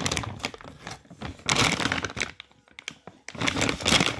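Plastic dry dog food bag crinkling as it is gripped and turned over in the hands, in three bouts of crackling.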